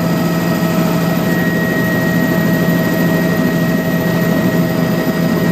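Helicopter engine and rotors heard from inside the passenger cabin in flight: a loud, steady drone with a constant whine running over it.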